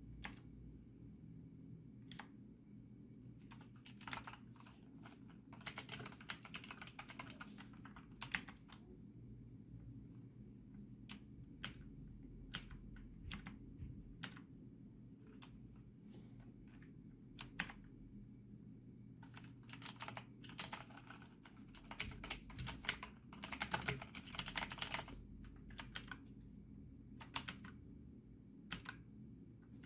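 Typing on a Motospeed CK101 mechanical keyboard with clicky Outemu Blue switches: sharp key clicks in irregular runs with pauses, the densest bursts of fast typing about a fifth of the way in and again past two thirds, with single keystrokes between.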